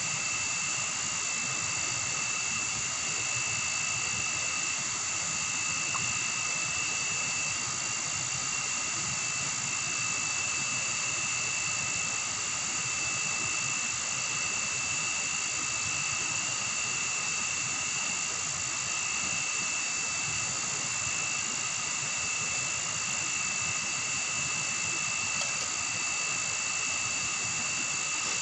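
Steady chorus of forest insects: a continuous high, shrill drone at several fixed pitches that never lets up.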